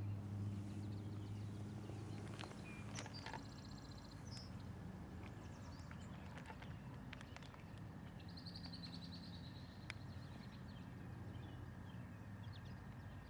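Faint outdoor ambience: birds chirping, with short trills about three seconds in and again near nine seconds, over a low steady hum that fades away over the first two seconds.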